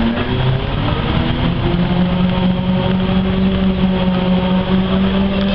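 Ikarus-435.17 articulated bus's diesel engine and drivetrain running under way, heard from inside the bus. A steady droning tone rises a little early on, holds level, and starts to drop in pitch at the very end.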